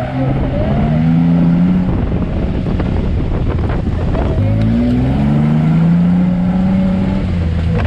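Off-road vehicle's engine revving under load, its pitch climbing several times as it accelerates.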